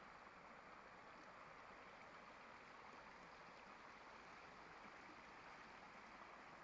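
Faint, steady rush of a small river running over rocks and rapids.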